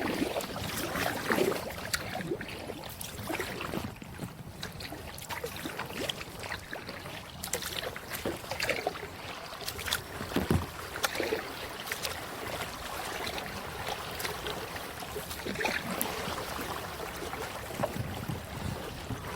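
A kayak being paddled: the paddle blades dip and splash in the water, with scattered small clicks and knocks. There is a low thump about ten and a half seconds in.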